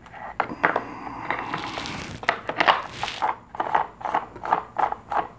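Plastic cover and bar scraping and rattling as the side cover of an EGO 14-inch battery chainsaw is seated over the bar, then a run of even clicks, about three a second, as the cover's green knob is turned to snug the bar down.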